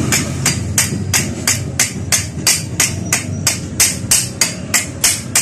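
Hammer striking a steel punch in steady, evenly spaced metallic blows, about three a second, setting the rivets that hold the new rubber dampers in a Yamaha Sniper 150 clutch housing, with a steel bar braced against the other side.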